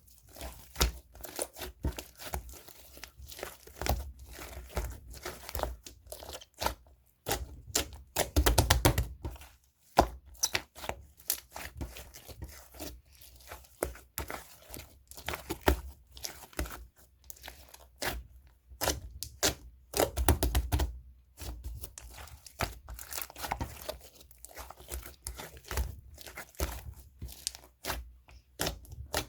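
Green marbled macaron slime being stretched, folded and pressed by hand, giving a continuous run of irregular sticky crackles, pops and clicks. Twice, about a third of the way in and again past the middle, heavier squishing thuds come as the slime is pressed or slapped together.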